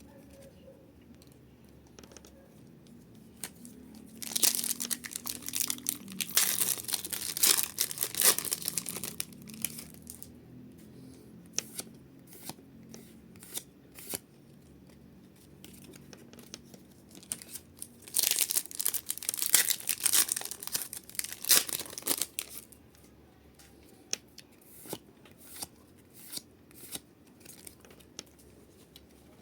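Pokémon booster pack wrappers being torn open and crinkled, in two loud bouts about four and eighteen seconds in. Scattered light crinkles and clicks from handling the packs and cards come between and after.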